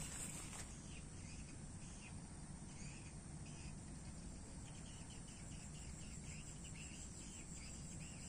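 Faint insect chorus: a steady high buzz with short chirps repeating throughout.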